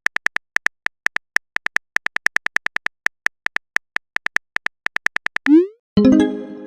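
Phone keyboard typing sound effect: rapid, irregular key clicks. Near the end a short rising swoosh, then a chiming message-notification tone.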